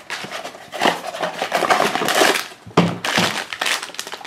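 Cardboard blind box being torn open by hand: rough tearing, crumpling and scraping of the card flaps, with short knocks and ticks as the box is handled.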